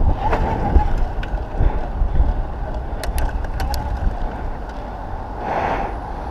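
Wind rumbling on the microphone of a bicycle-mounted action camera while riding along a city street, with steady road noise. A few sharp ticks come about three seconds in, and a brief rush of noise near the end.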